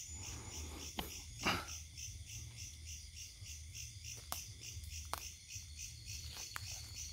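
Crickets chirping in a steady, evenly pulsing rhythm, with a few scattered sharp clicks.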